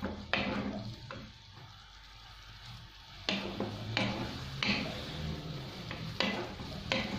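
Minced meat with garlic and tomato sizzling in a frying pan while a wooden spatula stirs it. The spatula scrapes across the pan in several quick strokes, one just after the start and the rest from about three seconds in.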